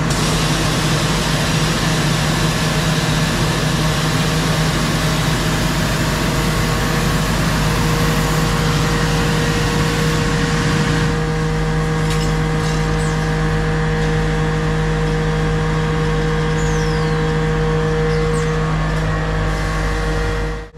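Steady, loud laundry-plant machine noise: a low hum under a hiss, with the upper part of the hiss dropping away about eleven seconds in while the hum runs on.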